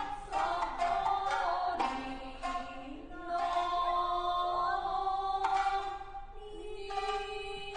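Traditional Japanese dance music: a voice singing in long, bending notes over plucked shamisen strokes.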